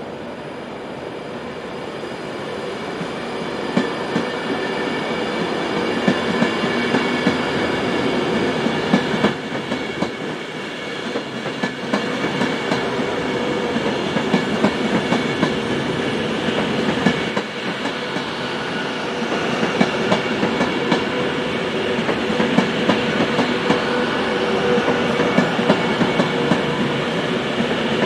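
A train running past on the rails, its wheels clicking over rail joints over a steady running hum. It grows louder over the first several seconds, then stays loud.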